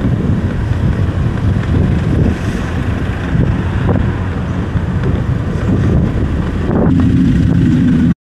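Wind rumbling on the microphone over the steady noise of road vehicles in traffic, cutting off suddenly near the end.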